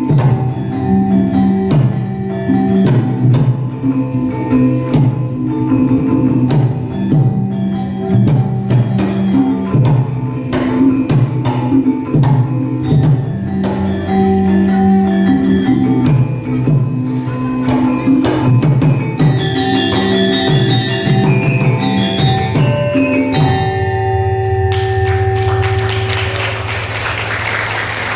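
Live Javanese gamelan playing a dance accompaniment: bronze metallophones and kettle gongs strike a dense interlocking pattern over drum strokes. About 23 seconds in the piece closes on a long, low ringing note, and applause starts a couple of seconds later.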